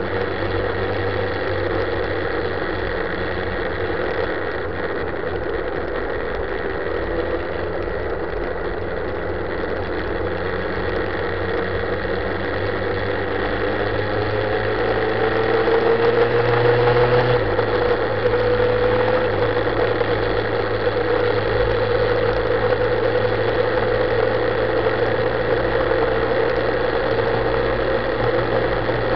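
Motorcycle engine running steadily at cruising speed, around 4,000 rpm, with road and wind noise. Between about 14 and 17 seconds in, the note rises a little and grows louder as the bike accelerates, then settles.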